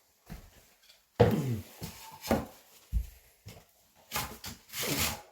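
Handling noise from tools and building materials: a string of separate knocks, scrapes and rustles, with a low thump about three seconds in.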